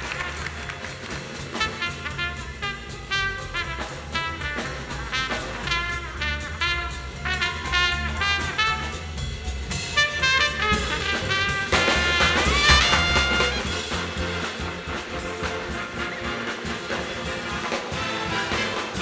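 Big band jazz ensemble playing an instrumental passage, trumpets and trombones in short punchy phrases over a drum kit. The brass climbs in pitch to the loudest point about twelve seconds in.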